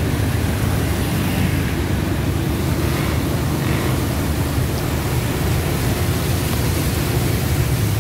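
Auto-rickshaw engine running steadily, heard from inside the open cab, under a steady hiss of rain and tyres on the wet road.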